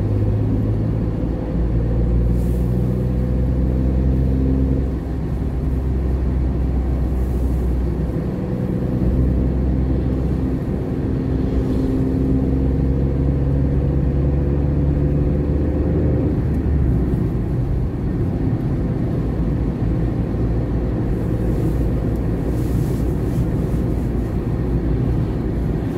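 Car engine and road noise heard from inside the cabin while driving: a steady low rumble with an engine hum that shifts in pitch a few times during the first two-thirds. The hum then fades, leaving mostly tyre and road rumble.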